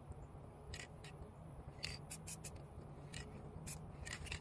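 Aerosol spray-paint can fired in about ten quick, irregular short hisses, each lasting a fraction of a second, over a faint steady low hum.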